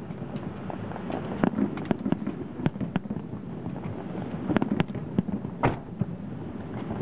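Fireworks bursting: irregular sharp cracks and bangs, a few a second at times, over a steady low rumble, with the loudest cluster a little over halfway through.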